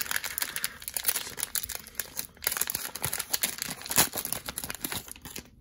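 Plastic wrapper of a trading-card cello pack crinkling and tearing as it is ripped open by hand: a dense run of sharp crackles, the loudest about four seconds in.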